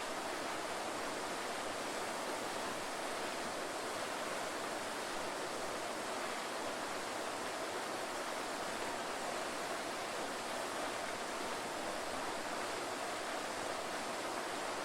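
Waterfall: falling water crashing in a steady, even rush.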